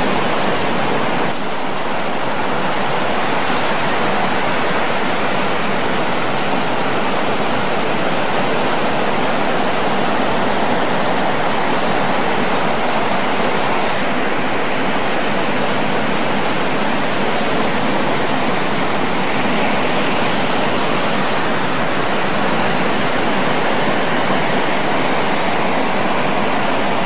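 Breaking ocean surf, heard as a steady, even rush of noise.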